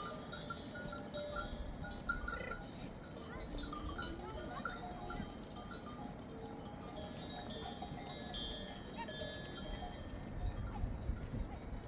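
A flock of sheep and goats bleating, with the clank of livestock bells among them.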